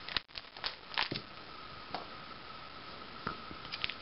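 Plastic card-sleeve pages of a ring binder full of trading cards being turned by hand: a few short crinkles and clicks as the sleeves flex and a page flips over, over a faint steady high whine.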